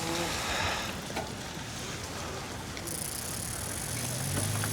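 Bicycle rolling along an icy, slushy city street, with steady road and wind noise and a few faint ticks. A low steady hum comes in near the end.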